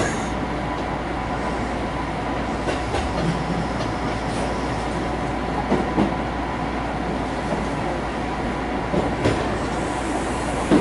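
Kintetsu commuter train running, heard from inside the carriage: a steady rumble of wheels on rail, with a few short knocks from the running gear.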